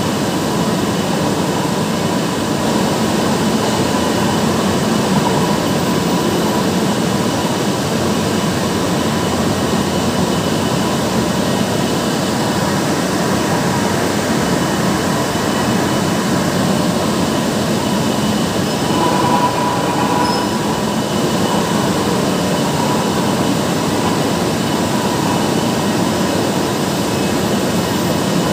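Tea-processing machinery running: large rotary drums for tea leaves turning, driven by electric motors through gearboxes, a loud steady mechanical rumble with a faint steady whine over it.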